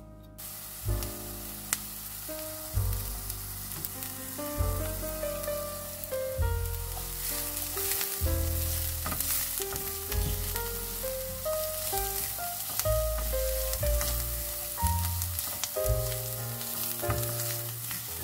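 Sliced onion and minced garlic sizzling in oil in a nonstick frying pan, stirred with a spatula that scrapes against the pan now and then.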